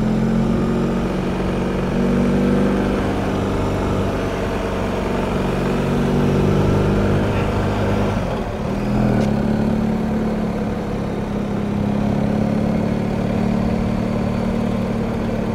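BMW R1250 GS Adventure's boxer-twin engine running at low road speed, a steady engine note that dips briefly about eight seconds in and then settles again.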